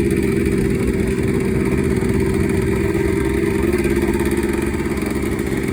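Small two-stroke single-cylinder off-road engine running while being ridden, holding a fairly steady note.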